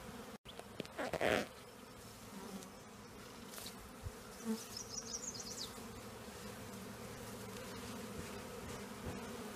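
A honeybee swarm hums steadily as the bees fly around and crawl into a hive box, a continuous drone of wingbeats. A short burst of noise about a second in is the loudest moment.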